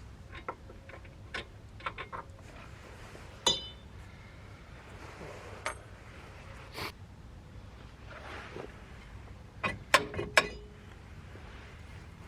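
Metal tools and parts clinking and knocking irregularly during rear wheel-hub and brake disassembly. One clank rings briefly about three seconds in, and a quick run of sharper knocks, the loudest, comes near the end.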